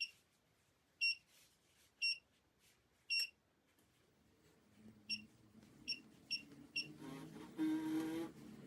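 Short, high-pitched electronic beeps: four about a second apart, then a quicker run of five. A low hum with steady tones comes in near the end.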